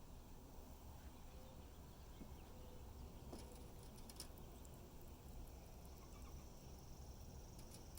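Near silence: faint background hiss with a few soft clicks about halfway through and again near the end.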